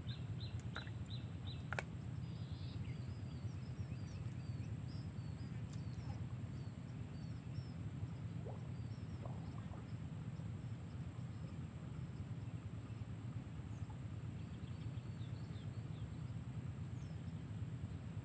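Outdoor ambience with a steady low rumble, small birds chirping in quick runs of short notes through the first several seconds and again near the end, and a thin steady high tone. A few sharp clicks sound in the first two seconds.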